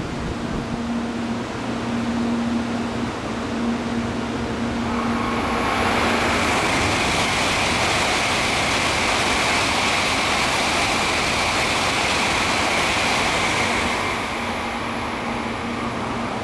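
Shinkansen bullet train running past the platform: a steady hum, then about five seconds in a loud rush of air and rail noise builds, holds for around eight seconds and eases off near the end.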